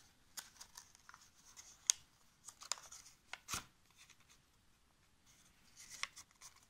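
Red craft paper rustling and crinkling in the hands as glued segments are pressed together into a cone, with a few scattered sharp ticks, the sharpest about two seconds and three and a half seconds in.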